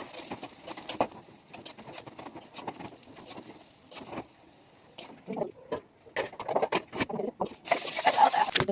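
Hot oil crackling and spattering in a pan as food fries, with many small irregular pops and a louder burst of sizzling near the end.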